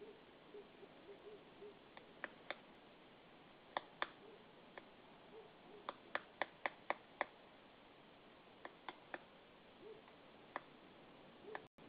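A woodpecker knocking on wood: single and paired sharp taps at irregular intervals, with a quicker run of about six knocks, some three or four a second, near the middle.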